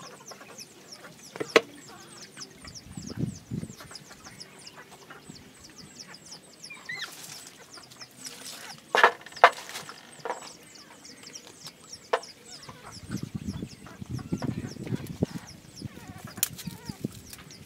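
Newborn puppies squeaking and whimpering, many short, high, falling squeaks throughout. A few sharp knocks come about a second and a half in and around nine seconds.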